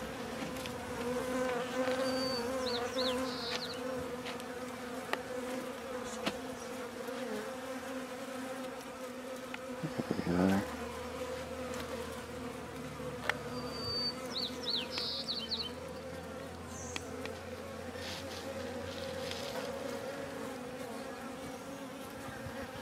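Honey bees from a package colony buzzing in and around their cardboard shipping box, a steady hum, with a knock about ten seconds in.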